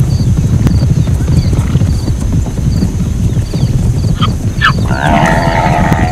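Zebra calling: two short barking calls about four seconds in, then a longer wavering bray from about five seconds, over a steady low rumble.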